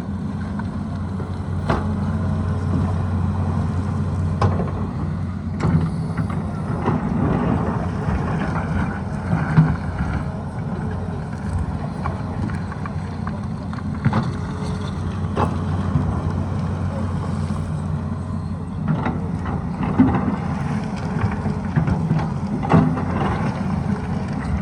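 Tata Hitachi hydraulic excavator's diesel engine running steadily under working load, with scattered sharp knocks from the machine's work.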